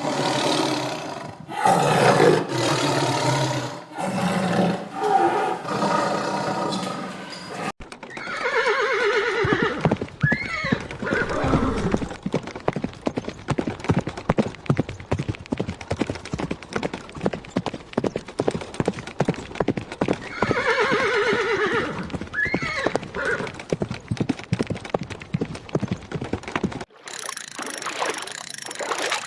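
A horse neighing twice, about twelve seconds apart, over a steady rapid clatter of hooves. The first few seconds hold other animal calls, and near the end it cuts to a different sound.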